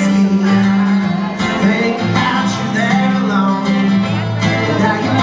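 Acoustic guitar strummed in a slow song, with a man singing over it through a PA.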